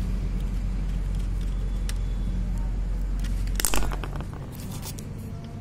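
Light clicks and ticks of wire and plastic switch-plate parts being handled, over a low steady hum that fades out about four seconds in. The loudest sound is a short clatter of clicks just before the hum fades.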